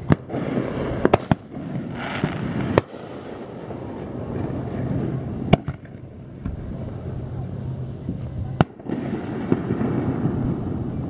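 Fireworks going off at a distance: a string of sharp bangs at irregular intervals, three in quick succession about a second in and single ones later on, over a steady background hiss and a low hum.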